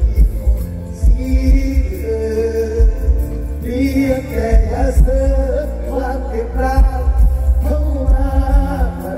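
Live mor lam music: a strong, pulsing bass beat under a wavering sung or played melody.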